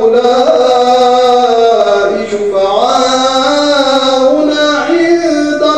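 A man reciting the Quran in the melodic, drawn-out tajwid style, holding long sung notes. His pitch steps upward about halfway through and climbs again near the end.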